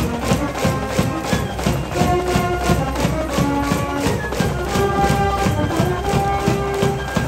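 School cheering band playing a baseball cheer song in the stands: brass melody in held notes over a steady drum beat.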